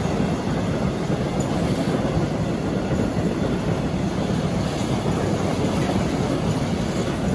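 Empty flat freight wagons rolling past at speed: a steady rumble of steel wheels on the rails.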